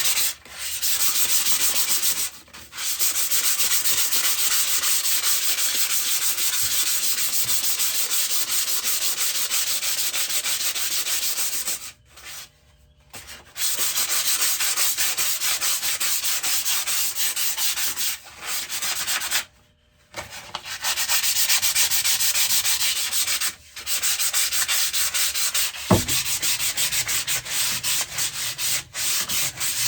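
Belt sander with a 120-grit belt grinding work held against it: a steady abrasive hiss in long stretches, broken several times by short pauses where the work is lifted off the belt. A single sharp knock about 26 seconds in.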